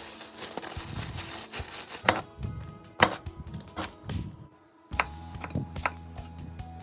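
Kitchen knife striking a cutting board in several separate chopping strokes, over background music.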